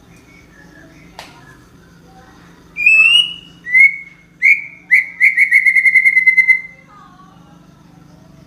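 A songbird singing loudly: a few clear whistled notes, then a fast trill of about a dozen notes on one pitch, the phrase lasting some four seconds. Fainter bird calls and a low steady hum sit underneath.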